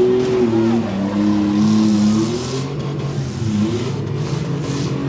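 Demolition derby cars' engines running and revving, their pitch rising and falling.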